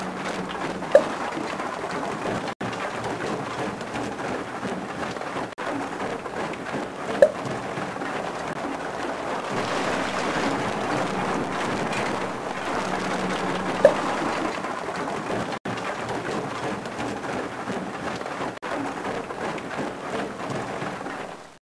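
Rock crusher at work in an underground mine: a steady, noisy rattle of rock being broken, with three short, sharp pings standing out above it.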